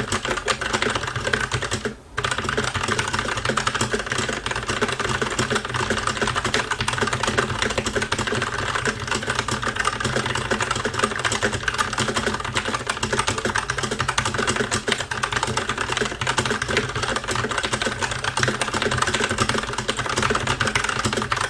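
Fast typing at about 150 words a minute on a Tecware Phantom tenkeyless mechanical keyboard with Outemu Brown switches: a dense, unbroken stream of rapid keystrokes, with one brief pause about two seconds in.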